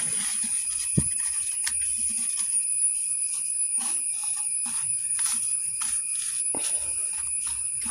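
Insects chirping steadily: a continuous high-pitched trill with a faint rhythmic pulse about twice a second. A single knock sounds about a second in.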